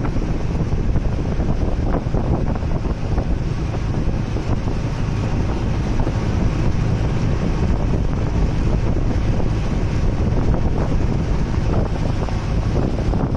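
Wind buffeting the microphone over the steady low drone of an outrigger boat's engine running under way, with water rushing past the hull.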